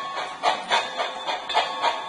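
Model train running on the layout track, with a regular beat of short clicking accents about three times a second.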